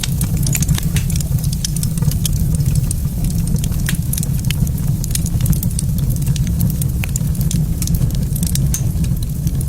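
Wood fire in a fireplace crackling, with frequent small sharp pops over a steady low rumble.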